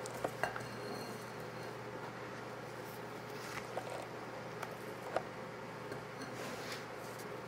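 A few faint, soft clicks and scrapes of a spatula against a glass bowl and a piping bag as macaron batter is spooned into the bag, over a low steady hum.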